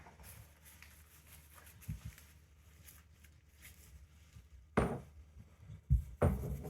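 A few knocks and clatters from bike parts and packaging being handled, in an otherwise quiet room. A faint one comes about two seconds in, the loudest near five seconds in, and another about a second later.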